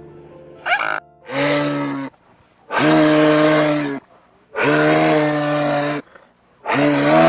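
An animal calling four times in a row, each call a loud, long, fairly steady low-pitched note of a little over a second, with short pauses between.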